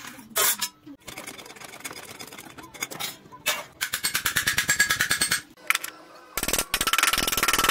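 A hammer tapping rapidly on thin steel sheet laid on a wooden block, about eight to ten blows a second, folding over a flange. A sharp knock comes near the start, and a steady hiss sets in near the end.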